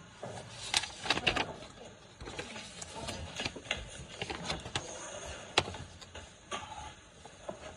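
Irregular clicks, taps and knocks of objects being handled, with a cluster of louder ones about a second in and a single sharp click a little past halfway.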